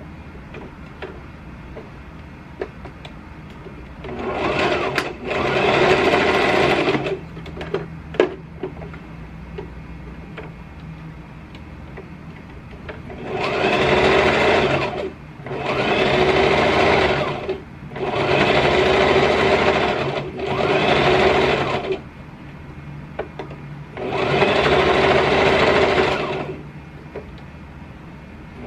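Brother electric sewing machine stitching through fabric, running in short spurts of one to two and a half seconds and stopping between them, about seven times, with small clicks in the pauses.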